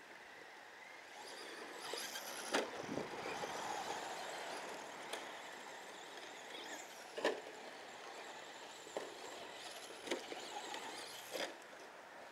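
Small electric radio-controlled trucks driving on a dirt track: their motors whine, rising and falling in pitch as they speed up and slow down, with a few sharp knocks as the trucks hit bumps and land.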